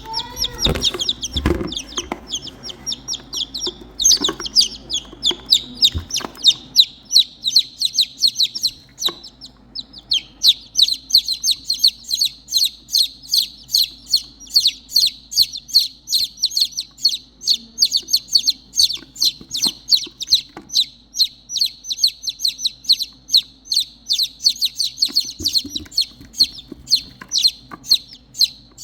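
Baby chicks peeping loudly and continuously, a rapid string of short high-pitched peeps at two to three a second with a brief pause about ten seconds in: the distress calls of chicks separated from their mother hen. A few knocks sound in the first couple of seconds.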